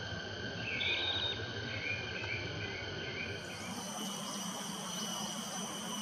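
Insect chorus of crickets or cicadas, several steady high-pitched tones at once. A short bird call sounds about a second in, followed by a run of four quick chirps. A little past halfway the insect tones change to a higher-pitched set.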